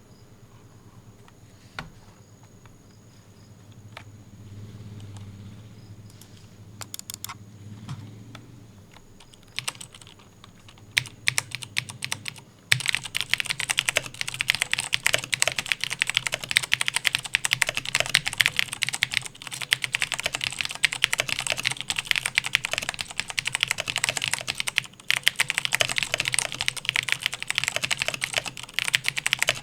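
Razer BlackWidow Ultimate 2013 mechanical keyboard with clicky Cherry MX Blue switches being typed on, after about ten years of heavy use: a few scattered keystrokes at first, then fast continuous typing from a little under halfway in, with a brief pause near the end.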